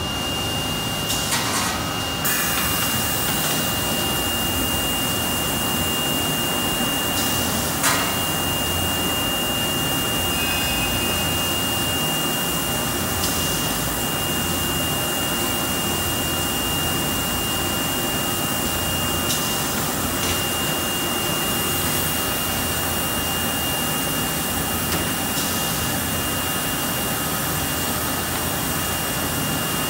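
Plasma torch of a Whitney 3700-ATC punch/plasma combo, fed by a 200-amp Hypertherm HT2000, cutting sheet metal: a steady loud rushing hiss with a steady high whine running through it. A few clicks come near the start, and a sharp knock about eight seconds in.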